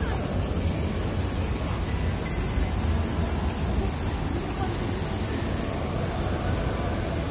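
Steady urban ambience: a continuous low rumble with a high hiss over it, and no single distinct event.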